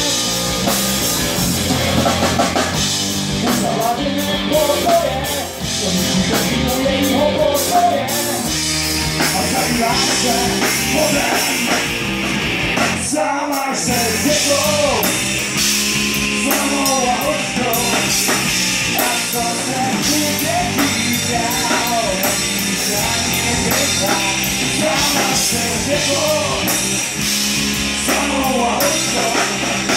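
Live rock band playing: electric guitars, bass guitar and drum kit, with a short break in the music about halfway through.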